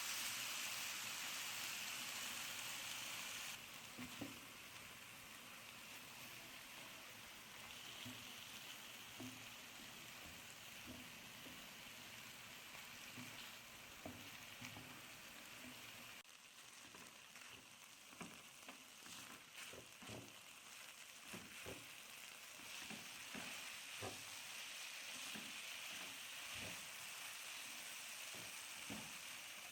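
Food frying in a hot pan: a steady sizzle that drops a step after a few seconds and again about halfway. Frequent light knocks and scrapes of a utensil stirring the pan run over it, most of them in the second half.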